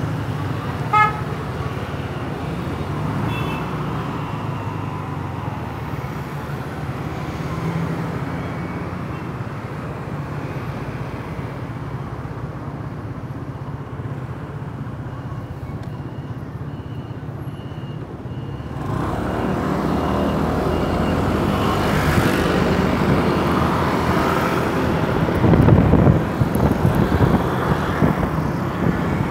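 A short vehicle-horn toot about a second in over idling scooter engines. From about two-thirds of the way through, the scooter pulls away and the engine, road and wind noise rise and grow louder.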